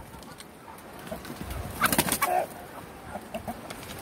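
Chickens clucking, with a louder burst of squawks and scuffling about halfway through as the hens squabble over a rat.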